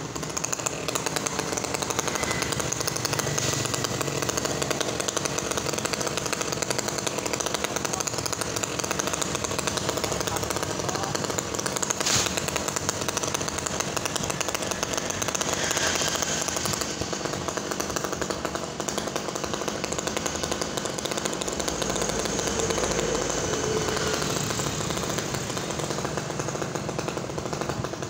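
Chainsaw running steadily, cutting through the limbs of a mango tree.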